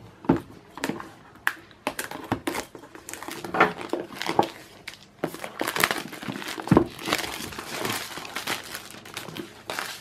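Clear plastic wrap being peeled and crumpled off a cardboard box: irregular crinkling and crackling with sharp clicks, busier in the second half.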